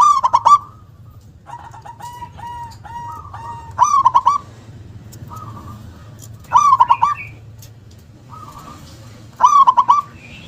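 Zebra dove (perkutut) cooing, its song phrase repeated four times about every three seconds, each a short, loud, rolling trill, with softer notes between the phrases.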